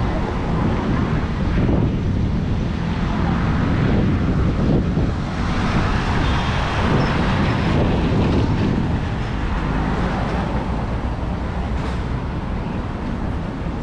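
Road traffic on a busy avenue: vehicles passing in a steady wash of road noise that swells and eases, with some wind rumble on the microphone.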